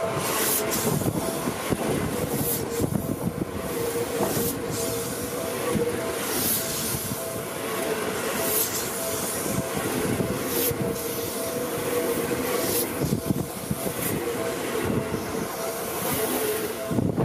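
Seibu 001 series "Laview" electric train passing close by: a continuous rumble of wheels on rails, with a sharp clack about every two seconds as each car's wheels go by.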